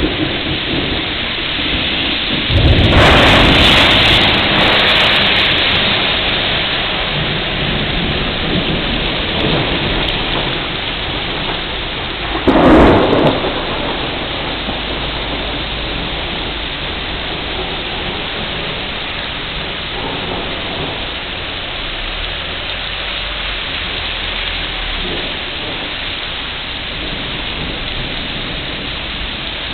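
Heavy rain falling steadily on pavement and leaves. A thunderclap breaks about three seconds in and rumbles away over a few seconds. A shorter, louder crack of thunder comes about halfway through.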